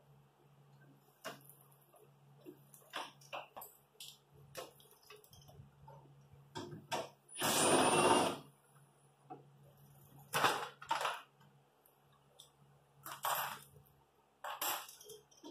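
A cordless driver runs for about a second partway through, spinning out a fastener holding the truck's plastic inner fender liner, among scattered knocks and clicks of the plastic liner and trim being handled and pulled free.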